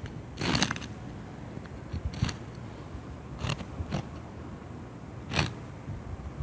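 Cockroaches heard close up: irregular dry clicks and scratchy rustles, about five of them spaced a second or so apart, over a low rumble.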